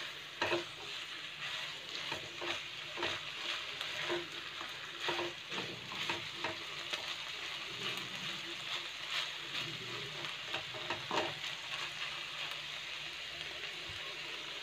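Chicken and chopped banana blossom sizzling in a nonstick pan while a spatula stirs through them, giving frequent short scrapes and knocks over a steady frying hiss.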